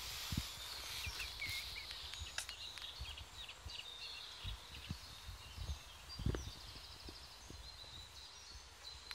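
Quiet open-air background with small birds chirping faintly and a few soft knocks on the wooden footbridge boards, the loudest about six seconds in.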